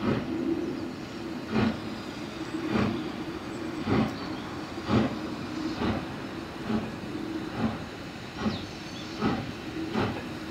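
Steam locomotive exhaust beats as the engine gets a train under way, the chuffs slowly quickening from about one every second and a half to more than one a second, over a steady low hum.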